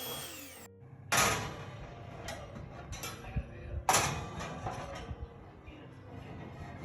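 Two sharp knocks about three seconds apart, each with a short ringing tail, with a few lighter clicks and taps between and after them.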